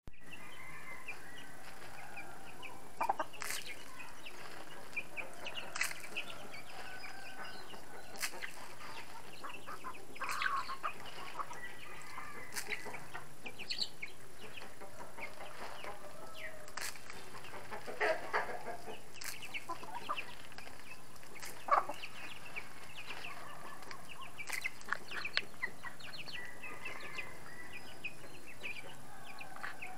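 Chickens, a hen with her chicks and young birds, feeding on grain scattered on concrete: scattered clucks and high chick peeps, with sharp clicks of beaks pecking at the ground.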